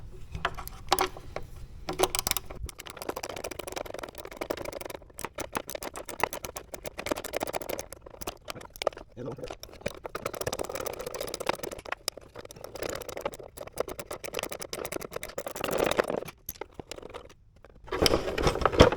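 Hand tools working out the 10 mm bolts of a motorcycle's lower-fairing speaker housing: runs of rapid clicking, with scrapes and small rattles of metal on plastic.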